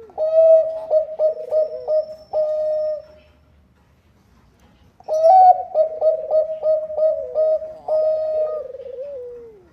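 Zebra dove of the Thai-bred perkutut bangkok type singing: a phrase of quick staccato coos ending in a held note, then after a two-second pause a second phrase of rapid coos that ends on a falling note.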